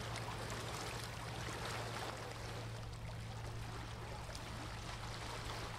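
Harbour ambience: a steady wash of water with a constant low hum underneath.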